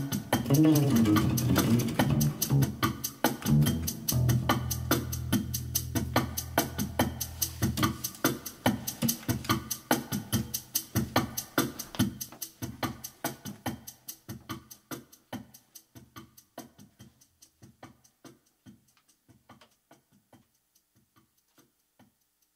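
Short-scale Ibanez Mikro electric bass playing low notes over a steady drum-machine beat. The bass drops out about eight seconds in. The beat then fades out gradually to almost nothing near the end.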